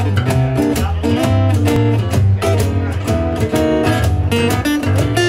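Live acoustic trio playing a song's instrumental intro: strummed acoustic guitar over a bass line and light percussion.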